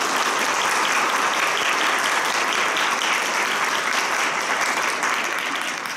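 Audience applauding: steady clapping from many people, dying away near the end.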